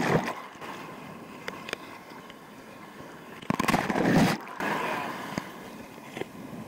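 Ocean surf breaking and washing up the beach, with strong wind buffeting the microphone. A louder rush about three and a half seconds in lasts about a second.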